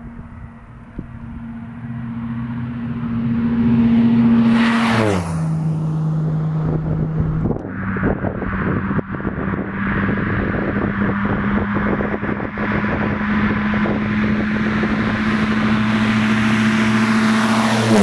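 Air Tractor 301 crop duster powered by a RED twin-turbo V12 diesel making a low fly-by. The engine grows louder as it approaches, and its pitch drops sharply as it passes about five seconds in. After a cut, the plane's engine holds a steady pitch and grows steadily louder as it comes toward and past on its takeoff run, with the pitch dropping again at the very end.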